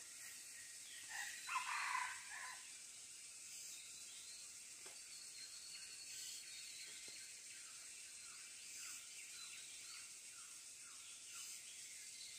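Forest ambience: insects buzzing steadily, with a brief louder bird call about two seconds in and later a run of short falling bird chirps, about two a second.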